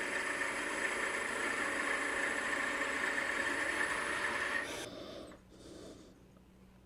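Wood lathe spinning a mahogany finial while a small turning tool cuts it, a steady scraping hiss of the cut. The cutting stops abruptly about five seconds in, leaving only faint handling sounds.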